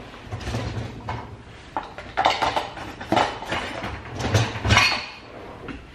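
Cutlery and kitchenware clattering and clinking as someone rummages for a knife, in irregular knocks that are loudest between about two and five seconds in.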